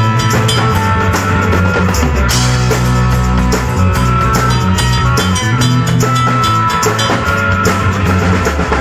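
Live rock band playing an instrumental stretch: drum kit with cymbals and electric guitars over sustained bass notes, with a regular beat.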